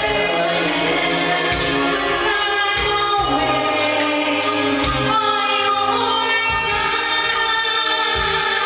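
Karaoke: a man singing long held notes into a microphone over a backing track with a steady beat, both played through the room's speakers.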